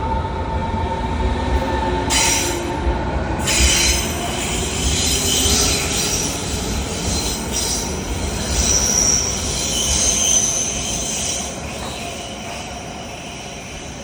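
Berlin S-Bahn electric train running with a steady rumble and bursts of hiss. Its wheels squeal high-pitched from about halfway through, then the sound falls away near the end.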